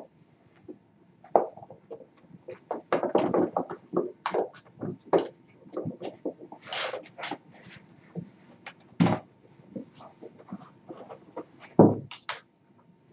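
Cleaning and handling noises: irregular rustling and clattering, with two heavy thumps about nine and twelve seconds in.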